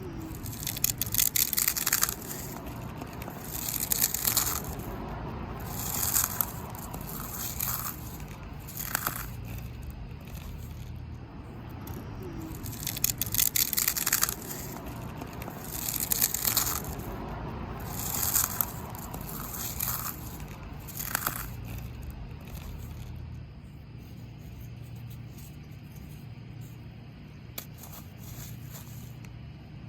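Oreo cookies being crushed in a hand, crunching and crackling in about ten separate squeezes, which thin out after about 22 s, over a steady low hum.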